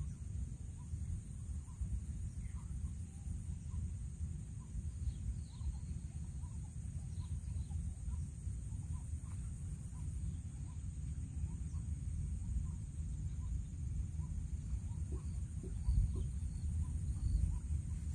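Outdoor wetland ambience: birds give short, scattered chirps over a steady high insect buzz, under a constant low rumble that is the loudest sound.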